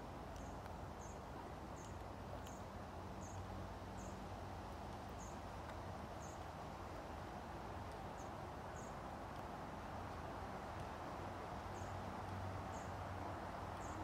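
Thin, high-pitched bird calls: short single notes repeated irregularly, about once a second, over a steady low background rumble.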